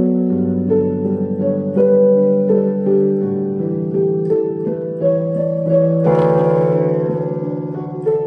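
Instrumental background music: a slow melody of held, ringing notes over a sustained lower part, with a brighter note coming in about six seconds in.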